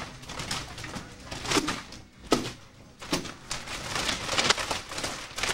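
A steel chain whip and broadsword being swung through a kung fu form: irregular rattles and swishes of the chain and blade, with stamps of feet on a carpeted floor. The sharpest stroke comes just over two seconds in, and a quick cluster follows a second later.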